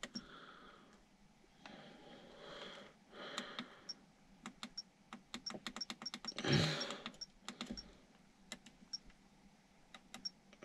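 Fingers pressing the small menu buttons on an ORSKEY dash cam: a run of quick, faint clicks, many with a short high beep, as the date and time are stepped through. A soft rustle of handling about two-thirds of the way in.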